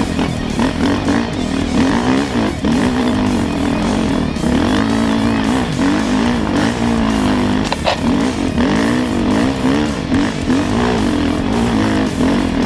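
2010 KTM 450 SX-F dirt bike's single-cylinder four-stroke engine revving up and down again and again as it is ridden along a trail, with rock music over it.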